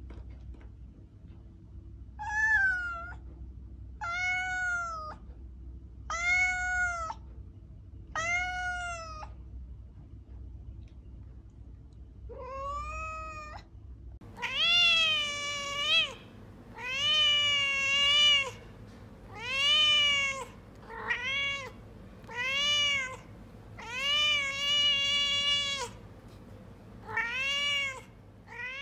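Domestic cat meowing repeatedly: five meows a couple of seconds apart, then from about halfway a run of louder, longer meows coming every second or two.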